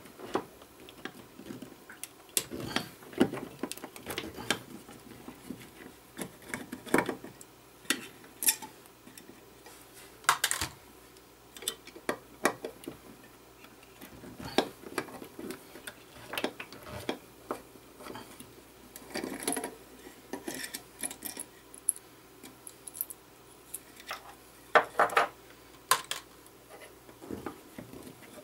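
Screwdriver working screws loose inside a metal guitar-pedal enclosure: irregular small clicks, clinks and scrapes of metal on metal as the control board is taken out.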